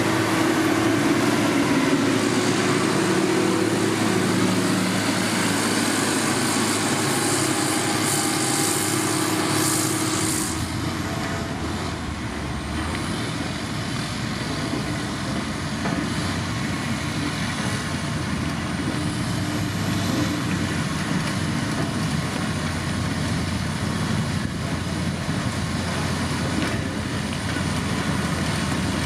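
Heavy road-construction machinery running, the engine sound steady and continuous. About ten seconds in, the sound changes abruptly to a lower, heavier engine note with a faint high whine above it.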